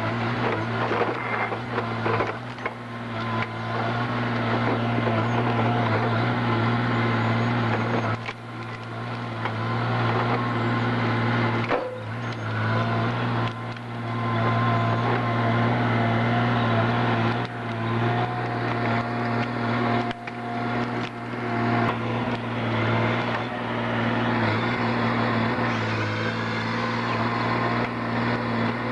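Heavy forestry machinery running, a steady low engine drone with its level dipping and shifting in places.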